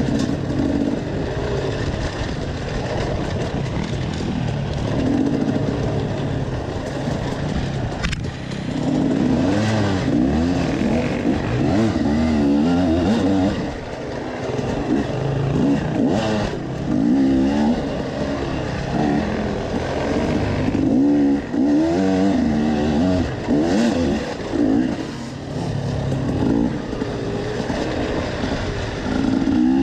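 Dirt bike engine on an enduro trail, heard on board, revving up and down repeatedly under throttle, with a few sharp knocks as the bike goes over rough ground.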